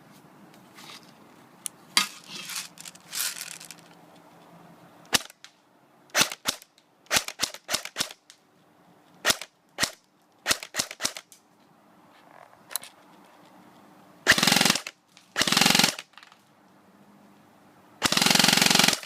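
KWA G36C airsoft electric gun, run on an 11.1 V LiPo battery, firing: scattered single shots and short strings through the first half, then three longer full-auto bursts near the end, the last the longest.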